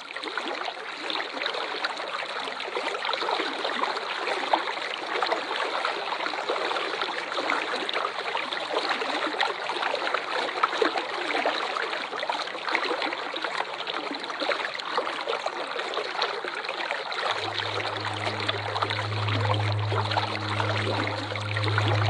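Waterfall water splashing and rushing steadily. About three-quarters of the way through, a low steady hum joins it.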